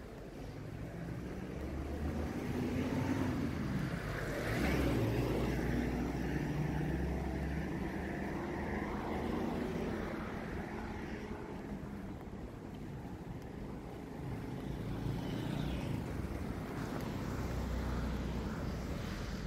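City street traffic: car engines running and vehicles driving past, with the loudest pass about five seconds in.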